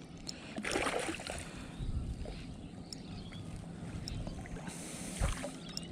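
Water splashing and lapping at the side of a kayak as a small flathead is drawn in and scooped up with a landing net, with a dull knock about five seconds in.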